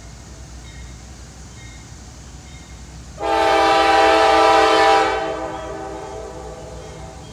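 Norfolk Southern diesel locomotive's air horn sounding one loud blast of about two seconds, about three seconds in, then trailing off. It is blowing for the grade crossing ahead, over the low rumble of the approaching locomotive.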